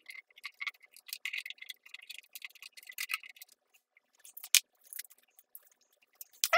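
Small dry scratches and ticks of sticker work: fingers rubbing decals onto a hard plastic RC car body and a hobby knife scoring the decal sheet, busiest in the first few seconds, with one sharp click about four and a half seconds in.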